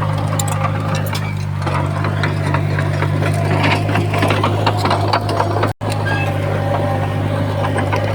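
Komatsu D51PX bulldozer's diesel engine running steadily, with irregular clanks and rattles over it. The sound cuts out for an instant about six seconds in.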